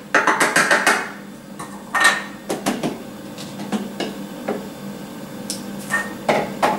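Thermomix lid being unlocked and lifted off the mixing bowl after milling: a quick run of plastic clicks and rattles in the first second, a sharp clack about two seconds in, then scattered knocks and another short clatter near the end.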